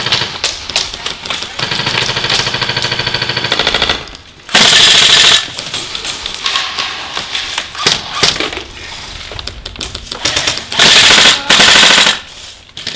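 Airsoft guns firing full-auto bursts with a rapid mechanical clatter. A long burst runs for about two seconds, then two louder bursts come, one about four and a half seconds in and one about eleven seconds in.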